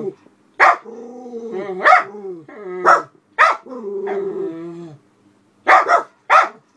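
Miniature poodles barking in alarm at a person and dog passing the house: about six sharp barks, with long drawn-out pitched calls between them and a short pause near the end.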